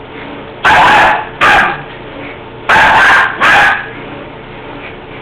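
Dog barking in two quick pairs, four loud barks in all.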